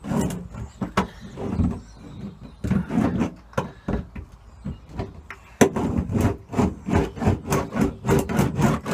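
Hand roller worked back and forth over a Tarmat bitumen sound-deadening sheet on a classic Mini's steel rear panel, pressing out air bubbles and bedding the edges: a run of rubbing strokes, quicker and louder from a little past halfway, at about three a second.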